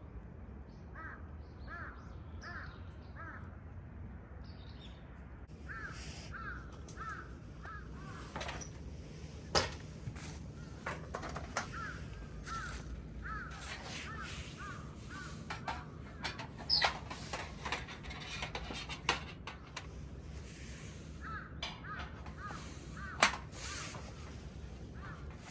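Crows cawing in runs of several short calls, repeated throughout, with scattered sharp cracks, the loudest about a third of the way in and again near the end.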